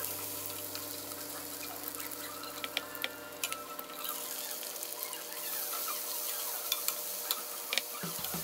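Garlic and onion sizzling in hot olive oil in a stainless-steel skillet, a steady hiss. A plastic spatula stirs them and scrapes and taps against the pan in short clicks.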